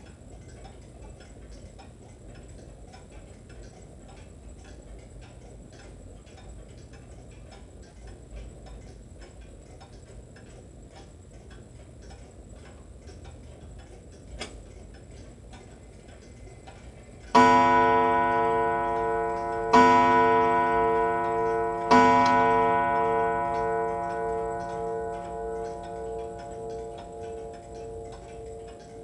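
Antique wall clock ticking steadily, then striking three on its gong about two-thirds of the way in. The three blows come a couple of seconds apart, and each one rings on and fades slowly: the clock is striking the hour of three.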